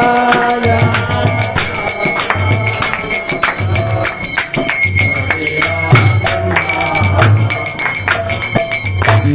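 Devotional kirtan music between sung lines: ringing metal percussion struck in a steady rhythm over a regular drum beat. The last sung note of 'jaya' trails off in about the first second.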